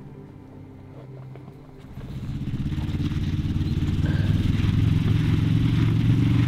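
A vehicle engine running: it grows louder from about two seconds in as the vehicle comes closer, then runs loud and steady with a rough low pulse.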